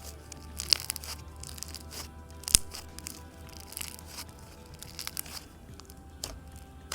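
Slime being squished and stretched by hand, giving irregular crackles, pops and crunches, with one sharp pop about two and a half seconds in. Soft background music plays under it.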